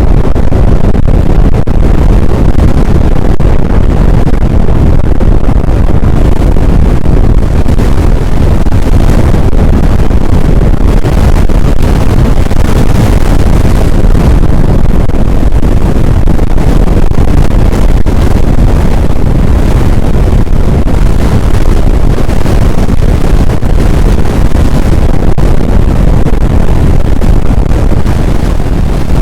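Strong wind blasting the microphone: a loud, steady low rumble without let-up.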